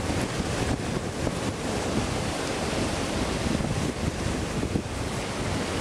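Ocean surf washing onto a sandy beach, a steady rush of breaking waves, with wind buffeting the microphone.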